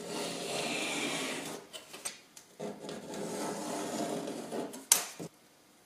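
Knife blade drawn along a steel ruler, slicing through a sheet of printed paper: two long cutting strokes with a few small clicks between, then a sharp tap of the ruler or knife about five seconds in.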